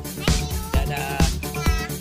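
Upbeat background music with a steady beat, about two drum hits a second, and a melody above it.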